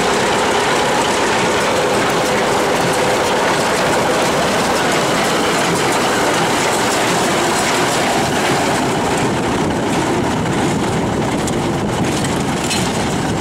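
Combine harvester running steadily under load while cutting a standing crop, a continuous dense mechanical clatter and hum.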